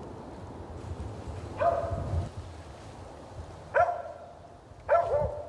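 Kemmer Cur squirrel dog barking three times, a second or two apart, each bark short and sharp.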